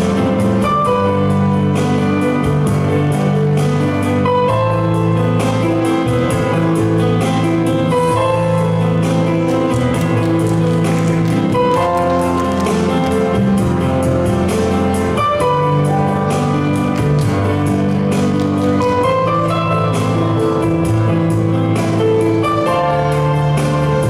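Music playing loudly and continuously: held notes over a bass line, with a steady beat.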